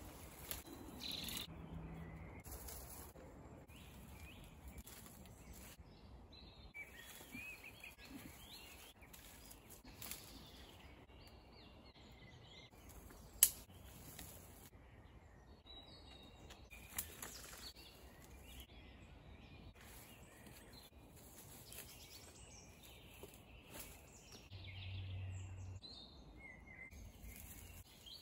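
Faint birds calling outdoors, scattered short chirps, with a sharp click about halfway through and a smaller one a few seconds later.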